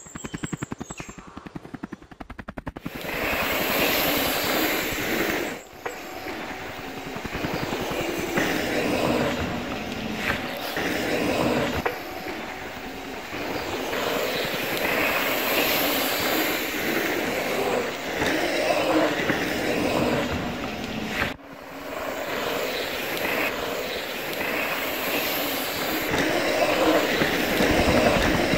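Loud, heavily distorted electronic soundtrack music with a dense buzzing texture, opening with a rapid pulsing build-up over the first few seconds, and with two brief breaks, about six seconds in and about twenty-one seconds in.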